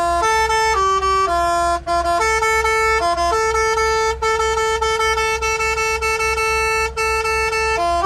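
Truck's basuri-style melody air horn, driven by a multi-tune klakson module, playing a tune: a loud, reedy melody of held notes stepping up and down, with short breaks about two, four and seven seconds in.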